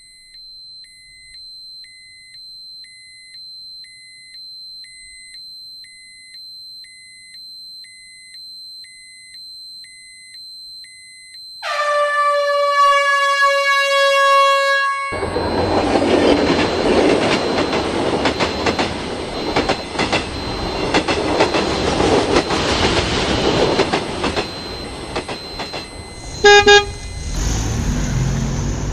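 Railroad crossing warning alarm beeping at a steady pace, a little over once a second, as the barrier comes down. About twelve seconds in, a train horn sounds for several seconds, followed by the loud rushing noise of a passing train. Near the end there is one short, loud horn blast, then a car engine as the barrier rises.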